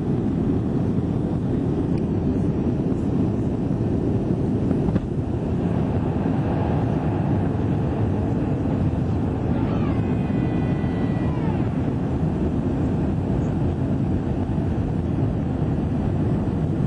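Steady low roar of an airliner's passenger cabin in flight on approach: engine and airflow noise heard through the fuselage. A single sharp click about five seconds in, and a brief high tone that falls in pitch about ten seconds in.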